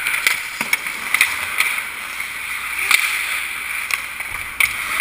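Ice hockey skates scraping and carving across rink ice in a steady hiss, with sharp clacks of sticks and puck at irregular moments.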